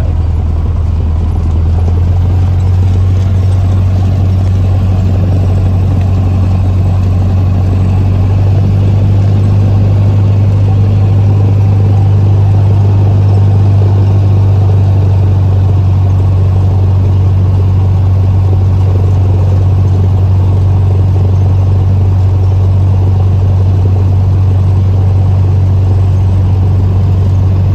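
Cessna 150's four-cylinder Continental O-200 engine and propeller droning steadily and loudly, a low even hum that grows slightly louder about two seconds in.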